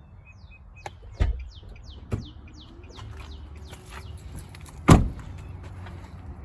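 Infiniti FX/QX70 liftgate latch being released by its exterior button: a few sharp clicks and clunks, the loudest about five seconds in. A bird chirps repeatedly in the background during the first few seconds.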